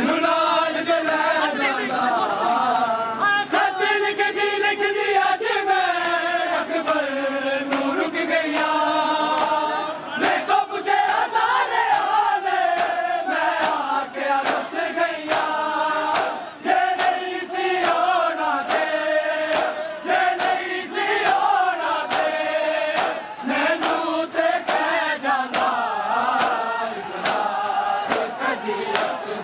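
A large crowd of men chanting a Punjabi noha together, with the sharp slaps of hands beating on bare chests (matam) keeping a steady beat.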